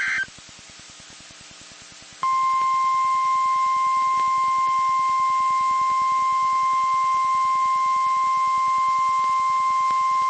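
NOAA Weather Radio broadcast: the end of a burst of SAME digital data tones cuts off at the very start, then a couple of seconds of receiver hiss. About two seconds in, the steady single-pitch 1050 Hz warning alarm tone starts and holds unbroken, used here for an alarm test.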